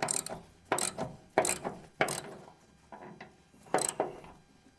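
Ratchet wrench clicking in short back-and-forth strokes, about one every three-quarters of a second, while loosening a hood bolt.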